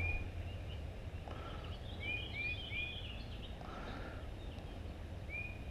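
Birds calling outdoors in short chirps, a few at a time, over a steady low background rumble.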